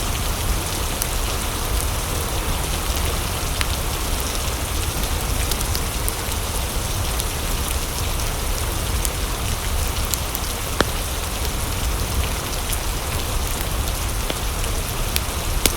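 Steady heavy rain falling, an even hiss with a deep steady low rumble beneath it. Scattered small clicks run through it, with one sharper click about eleven seconds in.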